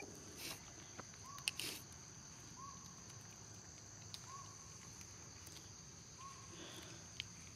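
Faint steady high-pitched drone of insects in the forest. A short hooked call repeats about every second and a half under it, and there are a few small clicks.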